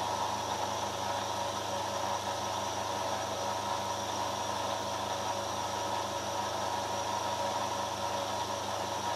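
Vertical milling machine running, its end mill taking a finishing pass along a metal vise jaw: a steady machine hum with a few constant tones.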